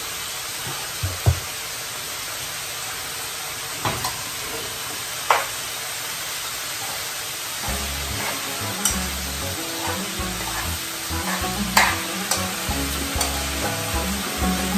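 A steady sizzling hiss with a few light clicks in the first half. From about halfway, faint background music with low notes comes in under it.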